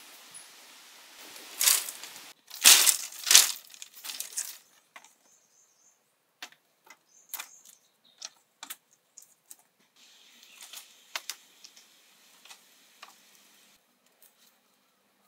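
Dry split bamboo strips rustling, crackling and clattering as they are handled and laid across a pole frame. The loudest crackling comes about two to three seconds in, followed by scattered light clicks and knocks.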